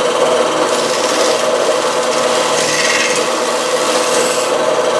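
Bandsaw running with a steady motor hum, its lower wheel spinning with no blade fitted, while a razor blade held against the wheel's electrical-tape tire scrapes off the excess at the edges, so the tire sits flush and the band will not ride over humps.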